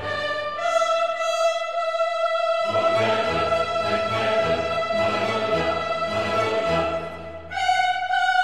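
Orchestral background music: strings hold long sustained notes over a low bass line, and the melody steps up to a higher held note after a brief softening about seven and a half seconds in.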